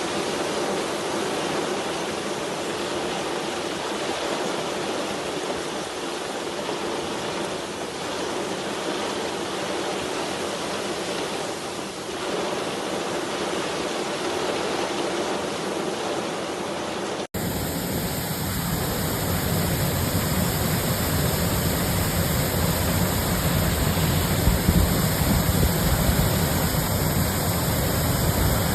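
Steady rush of heavy rain and running rainwater. About two-thirds of the way through it switches abruptly to a deeper, fuller rush.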